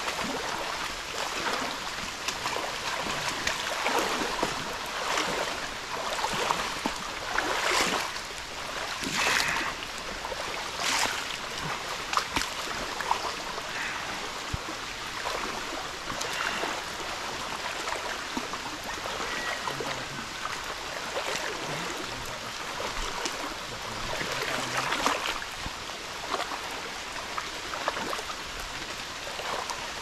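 People wading in a line through shallow floodwater among trees: water sloshing and splashing around their legs, with uneven surges at each stride.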